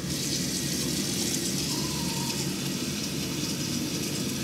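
Water running steadily from a sink tap into the basin, turned on at the very start.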